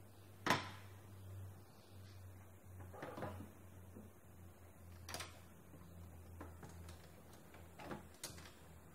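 A handful of sharp clicks and knocks from the metal and plastic frame of a photocopier fuser unit being handled, the loudest about half a second in, over a low steady hum.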